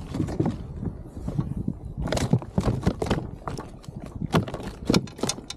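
Irregular knocks and slaps as a freshly landed fish is handled in a landing net on a plastic kayak, thickest in the second half, over a steady low wind rumble.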